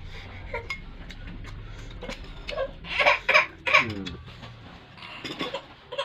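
Eating from a bowl of meatball soup: irregular clicks of cutlery against the bowl and mouth sounds, with a short falling vocal whine a little under four seconds in.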